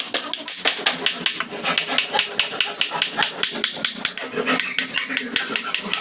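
Rapid, even taps of a claw hammer on the wooden handle of a carving chisel, about seven a second, as the chisel cuts a grooved pattern into a wooden door panel.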